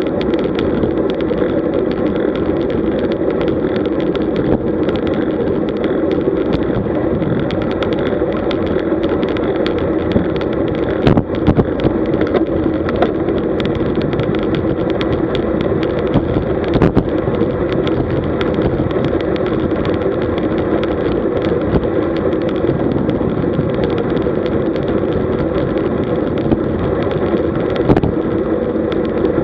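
Steady rush of wind and road noise picked up by a camera mounted on a road bike at about 45 km/h. A few sharp knocks from road bumps cut through it around the middle.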